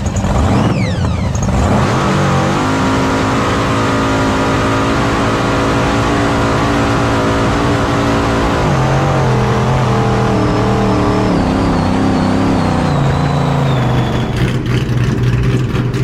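Jet boat engine revving up, then held at a steady high speed. Its pitch drops a step about nine seconds in, and it turns rougher and crackly near the end.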